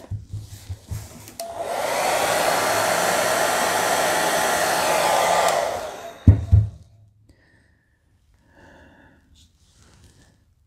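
Handheld hair dryer switched on and running steadily for about four and a half seconds, blowing liquid acrylic paint across a canvas, then switched off. Two low thumps follow just after it stops.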